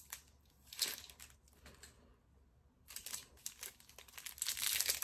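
Thin plastic wrappers crinkling as makeup brushes are pulled out of them: a short rustle about a second in, a pause, then a longer stretch of crinkling from about three seconds in.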